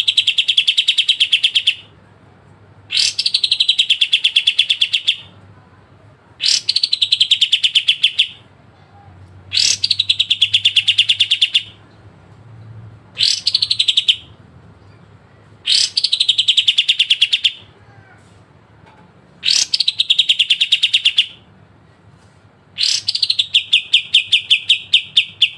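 A kapas tembak bulbul singing the same phrase eight times, about every three seconds. Each phrase starts with a sharp note falling in pitch and runs into a fast, rattling trill of about two seconds: the sharp "besetan" trill that bird keepers value.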